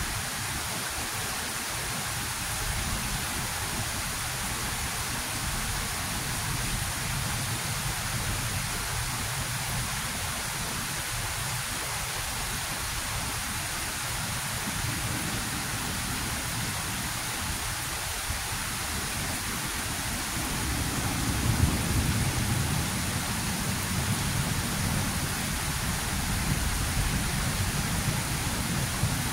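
Heavy rain falling steadily. A low rumble of thunder swells up about two-thirds of the way through and keeps rolling.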